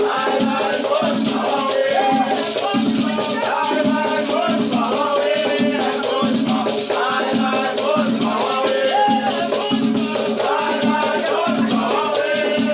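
Afro-Brazilian batuque ritual music: chanted singing over drumming and shaken rattles, in a steady rhythm.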